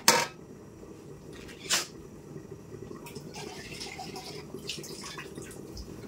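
A metal spatula knocks twice against a wok holding freshly blended spice paste, once at the start and again just under two seconds in. Under it runs a steady low rush from the gas stove burning.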